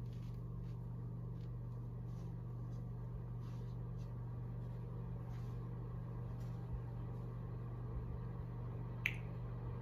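Quiet room tone with a steady low hum, faint soft rustles every second or so, and one short click about nine seconds in.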